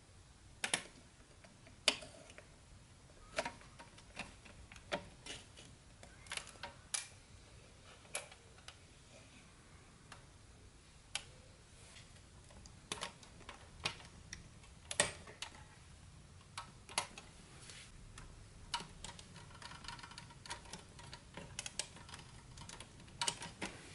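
Irregular sharp clicks and taps of small metal parts as the winch crank and rope drum of a pressed-steel 1960s Tonka ramp hoist toy truck are handled and fitted by hand.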